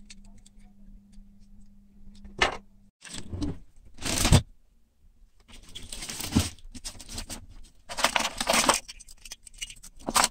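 Hands rummaging through a box of tangled hookup wires and small electronic parts: bursts of rustling and clattering with small clicks, and one thump about four seconds in.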